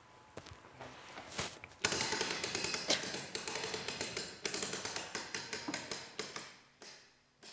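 Music box's wind-up key being turned to wind the spring: a rapid ratchet clicking, about six clicks a second, that starts about two seconds in and dies away shortly before the end. A few soft knocks come before and after it.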